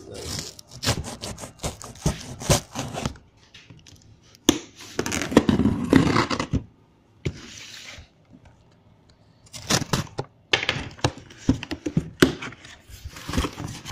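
A cardboard shipping box being opened along its taped seam: a run of scrapes, tearing and knocks against the cardboard, with a short steady hiss near the middle.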